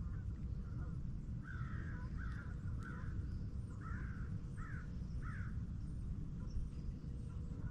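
A bird calling about six times in quick succession, short arching calls, over a steady low rumble.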